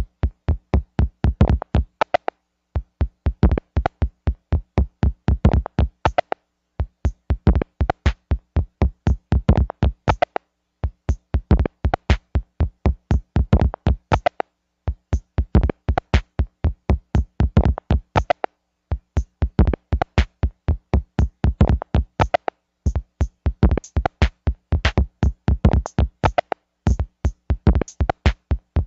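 Electronic music track: a quick beat of short, sharp hits that runs in phrases, dropping out briefly about every four seconds.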